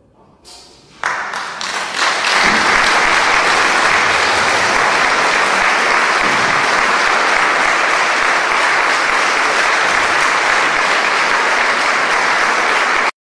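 Audience applauding: a few first claps, swelling within about two seconds into full, steady applause that cuts off abruptly near the end.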